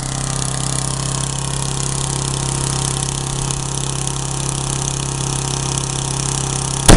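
A 1984 Briggs & Stratton single-cylinder lawnmower engine running steadily at a constant speed. Near the end comes a single very loud bang, and the engine's sound stops with it.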